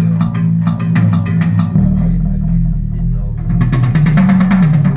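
Recorded music played through a JBL loudspeaker system: a bass-heavy track with guitar, bass guitar and a steady drum beat.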